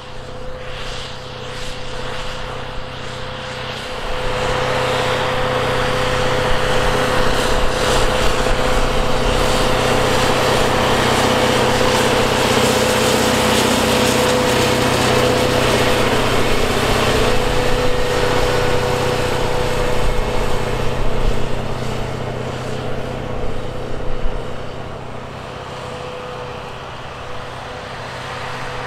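Tractor engine running under load while pulling a heavy disc harrow, with a steady whine over the engine. The sound swells about four seconds in and eases off near the end, like the rig passing close by.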